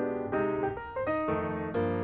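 Background piano music: chords and a bass line struck about twice a second.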